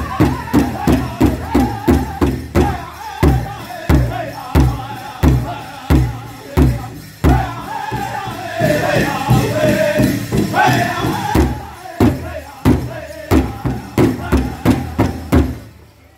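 Powwow host drum group singing an intertribal song: several voices in unison over a large bass drum struck together by the drummers. The drumbeat slows to about one and a half beats a second for a few seconds, then quickens again under the singing. Drum and song stop together near the end.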